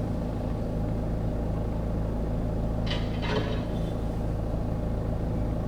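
Steady engine hum and road rumble inside a moving car's cabin.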